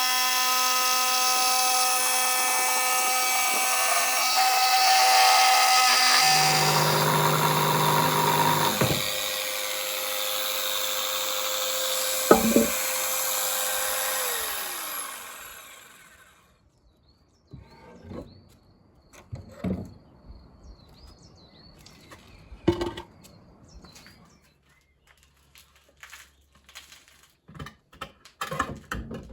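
Electric power tool running with a steady whine while working wood, switched off about halfway and winding down with a falling pitch, followed by scattered knocks and taps.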